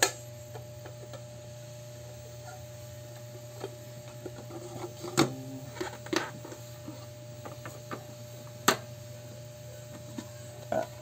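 Hard plastic parts of an electric juicer clacking and knocking as they are handled and fitted together by hand: a few sharp clacks, the loudest about five and nine seconds in, over a steady low hum.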